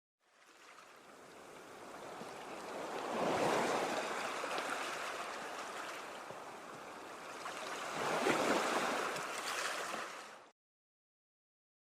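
Sea waves breaking in two swells of surf, cresting about three seconds in and again about eight seconds in; the sound fades in at the start and cuts off suddenly near the end.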